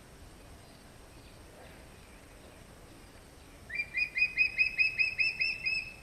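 Recorded call of a changeable (crested) hawk eagle: a quick series of about ten short, shrill, squeaky notes, each with a slight upward flick, about four or five a second, starting about three and a half seconds in after faint hiss.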